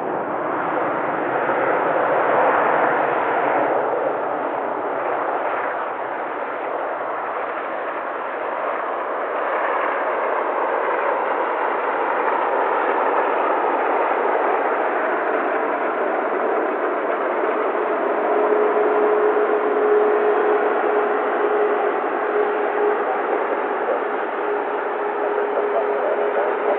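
Airbus A380-800's Rolls-Royce Trent 900 jet engines during the landing rollout just after touchdown: a loud, continuous rushing roar that swells a couple of seconds in. In the second half a steady whine sounds over the roar.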